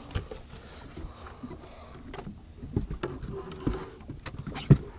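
Scattered knocks and clunks of fishing gear being handled in a boat, a wooden fish-measuring board being lifted and moved among them. The loudest is a sharp thump near the end.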